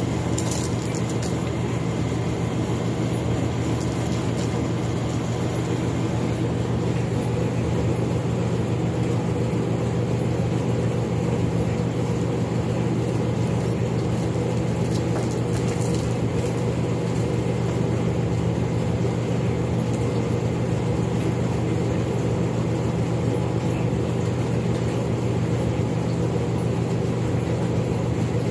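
Air conditioner running with a steady low hum and a constant rushing noise.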